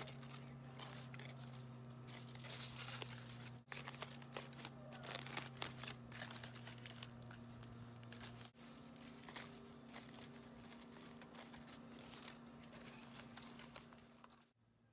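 Aluminium foil crinkling and rustling in irregular crackles as gloved hands peel open foil-wrapped packets, loudest about three seconds in, over a faint steady low hum.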